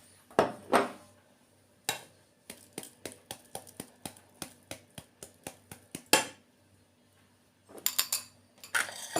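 Kitchen utensils knocking and clinking against a pot and dishes: a few sharp knocks, then a run of light taps at about four a second, then a last cluster of clinks.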